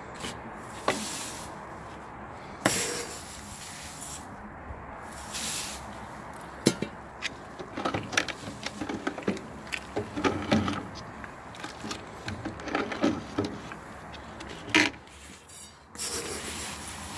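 Crushed malt being scooped from a bucket with a stainless steel scoop and poured into mash water, then stirred in with a spoon: irregular rustling, scraping and knocks of metal against the bucket and pot, busiest in the middle.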